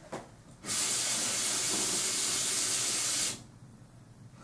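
Tap water running steadily into a small bottle to fill it, starting about half a second in and shut off after about three seconds.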